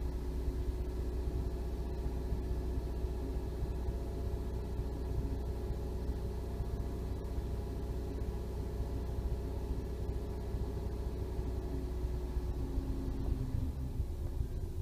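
Toyota Aygo's 1.0-litre three-cylinder petrol engine running steadily at raised revs under the accelerator, with a low rumble that falls away about a second before the end.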